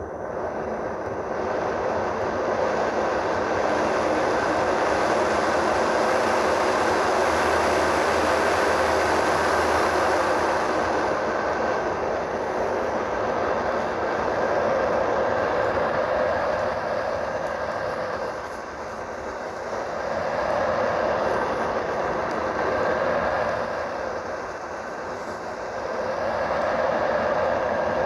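Snooz white noise machine's real internal fan running, a steady rush of air. It swells to its loudest over the first few seconds at maximum volume and eases after about ten seconds as the volume is turned down. Then it dips and comes back twice as the collar is turned to change the tone.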